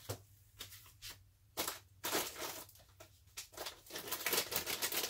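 Rustling and crinkling as clothes and packed items are handled and pressed into a cardboard shipping box. The rustles come in irregular bursts that grow busier after about a second and a half.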